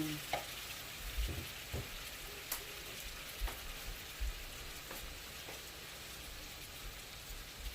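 Shrimp frying in melted butter with garlic and ginger in a wok: a steady sizzling hiss, with a few light knocks scattered through it.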